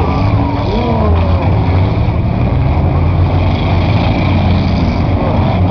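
Cars' engines running loudly and revving, with a few pitch glides in the first second.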